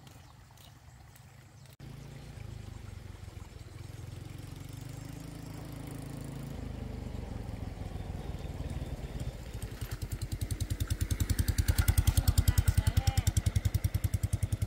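Small motorcycle engine approaching along a dirt road, growing steadily louder from about two seconds in; near the end its fast, even exhaust pulses are loud as it rides up close.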